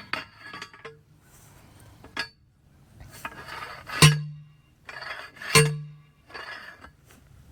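Metal clinking and rattling of fence hardware being handled, with two sharp knocks about a second and a half apart near the middle, each leaving a short low ring.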